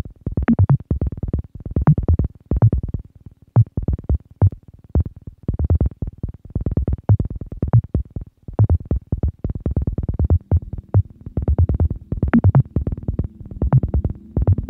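Electronic music: a synthesizer plays a dense, uneven run of short, sharp notes. A low sustained drone joins underneath about two-thirds of the way through.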